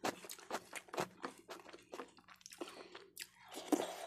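Close-up eating sounds: dal and rice eaten by hand being chewed, with a fast run of short wet clicks and smacks, the loudest a little before the end.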